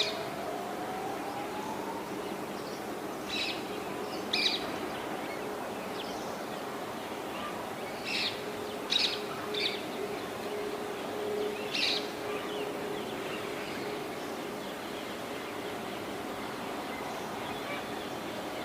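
Short, high bird chirps, singly and in quick pairs every few seconds, over a steady outdoor background noise.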